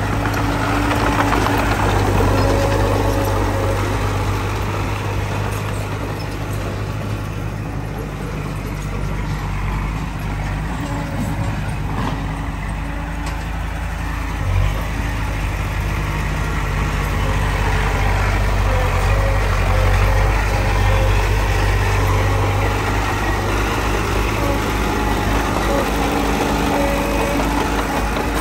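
Diesel engine of a Komatsu D20P bulldozer running steadily at work, its level swelling and easing, with a single short knock about halfway through.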